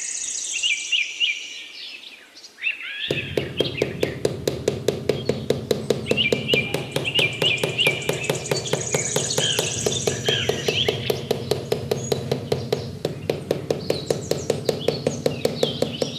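Songbird chirping throughout. From about three seconds in, rapid light tapping at about four taps a second over a steady low hum: a small hammer tapping a wooden stick down into sand.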